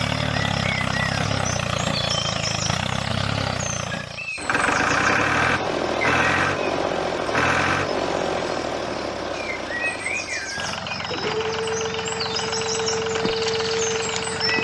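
Small motors of miniature machines running: a low, steady engine hum for about four seconds, then after a cut a pulsing running sound, and from about ten seconds in a steady high whine. Birds chirp throughout.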